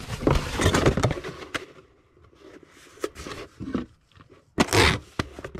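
Packing noises as a video game case is put into a small cardboard shipping box: rubbing and scraping, a few sharp clicks, and a short loud burst of noise about four and a half seconds in.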